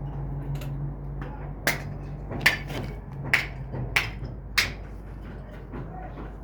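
A hammer striking about six times at uneven intervals, sharp knocks, over a steady low hum that fades out about four seconds in.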